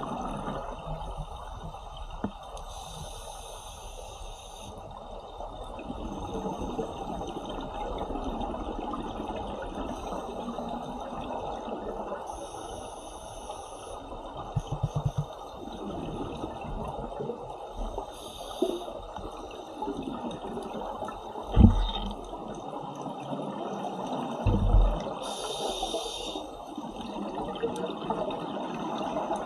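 Underwater ambience of scuba divers breathing through their regulators: a steady bubbling water hiss, with a breath hissing out every several seconds. A couple of dull knocks come in the last third.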